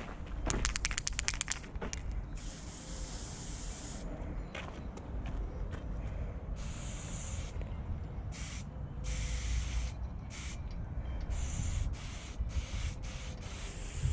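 Aerosol spray paint can hissing in a series of short and longer bursts as paint is sprayed through a four-needle skinny cap adapter. A quick rattling run of clicks comes near the start, and low wind rumble sits on the microphone throughout.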